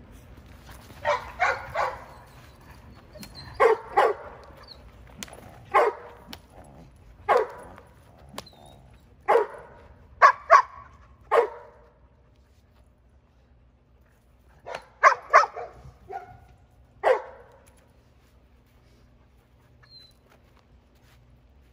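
Giant Schnauzer puppy barking in short bursts of one to three barks, with a pause of a few seconds partway through.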